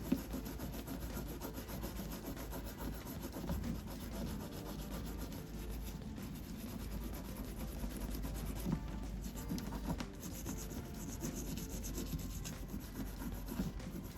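Steady, rapid scrubbing and rubbing on a bicycle part, as in cleaning and degreasing.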